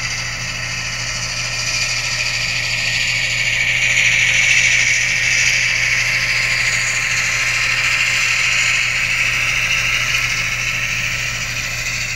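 HO-scale model diesel locomotives running along the track, their small electric motors and wheels whirring steadily over a low hum. The whir swells about four seconds in as the engines pass.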